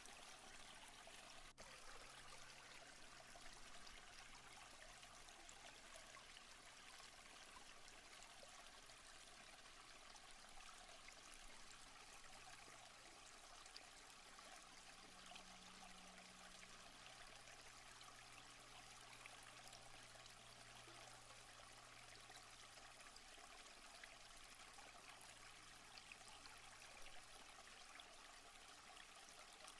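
Faint, steady rush of flowing creek water.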